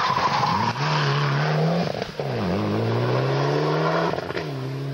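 Rally car engine pulling hard as the car accelerates away on a gravel road: the engine note climbs, dips sharply about two seconds in, climbs again, and drops once more near the end.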